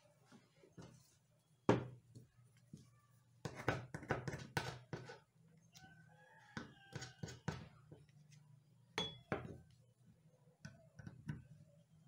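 Sharp knocks and taps of hand tools against a wooden table top, loudest about two seconds in, with a quick cluster of knocks around four seconds and more near nine seconds. Chickens cluck in the background.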